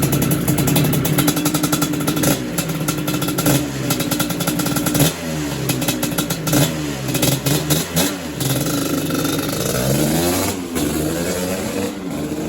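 1985 Suzuki LT250R quad's two-stroke single-cylinder engine, breathing through a full FMF exhaust system, running warm. It holds a steady note at first, then revs up and down repeatedly through the middle.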